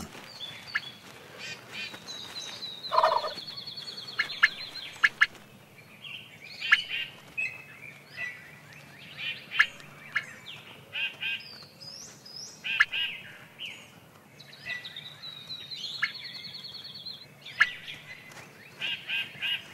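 Wild turkeys calling: courting toms gobbling, with short clucking notes. A long, high rattling trill sounds twice.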